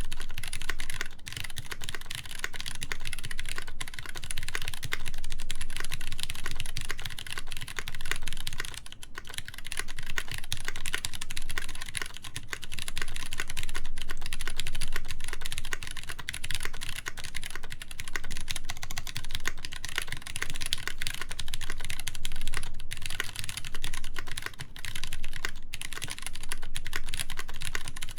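Continuous fast typing on a Duck Jetfire mechanical keyboard with lubed Cherry MX Brown tactile switches, a polycarbonate plate and GMK keycaps: a dense, steady stream of key clacks with a couple of brief lulls.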